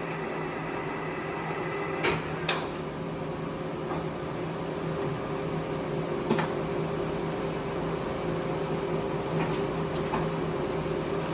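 Clausing Colchester 17x40 engine lathe running with a steady hum. Three sharp clicks come about two seconds, two and a half seconds and six seconds in.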